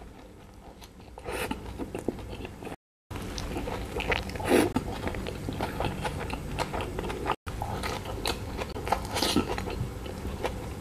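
Close-up bites and chewing of a fish-and-cheese burger with a thin fish patty, with wet mouth smacks and a louder bite about four and a half seconds in. The sound drops out twice for a moment.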